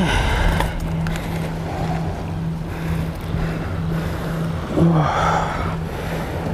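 Wind buffeting the microphone and sea waves washing against a rocky shore make a steady low rumbling noise, with a faint low hum that pulses on and off.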